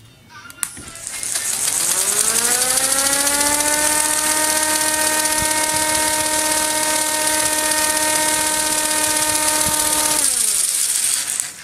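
K'nex electric motor and gear train driving a K'nex model spinning ride: a whine that rises in pitch as it spins up about a second in, holds steady, then falls away as it winds down near the end, with a high hiss over it.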